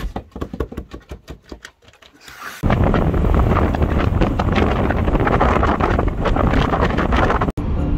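Scattered light clicks, then after about two and a half seconds a loud, steady rush of wind buffeting the microphone of a moving car held out at an open window, with a brief dropout near the end.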